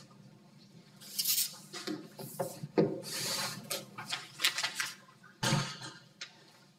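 Irregular rustling and clattering with several sharp knocks, starting about a second in, and a louder thud about five and a half seconds in.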